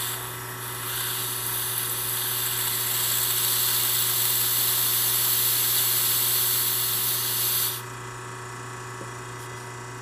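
Trapped non-condensable gas (air) hissing out of an opened fitting on top of the high-side float chamber of a GE Monitor Top refrigerator, purged so the float can work; the hiss cuts off suddenly near the end. A steady low hum from the running machine continues underneath.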